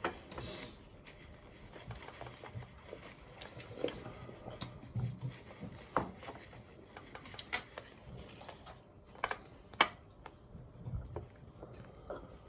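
Quiet room with scattered faint clicks and light taps, several strung through the middle and a sharper pair a little before the end.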